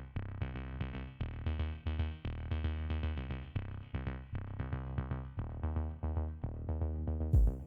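Electronic background music: a synthesizer and bass pattern with a steady beat, with drums and cymbals coming in near the end.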